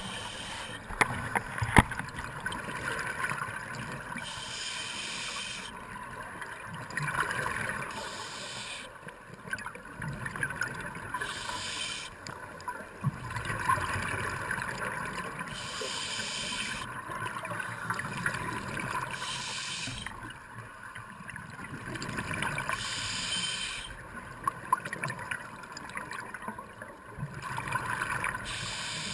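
Scuba diver breathing underwater through a regulator. A hiss on each inhale comes about every four seconds, and between the inhales the exhaled air bubbles out.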